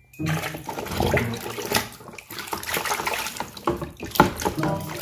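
Water sloshing and splashing in a plastic tub as a hand scrubs a muddy plastic toy car under the surface, in quick irregular swishes.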